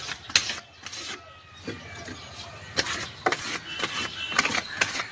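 A hand rubbing and smearing Fevicol adhesive over the metal inner wall of a deep freezer cabinet, across its copper cooling pipes: irregular short scraping strokes.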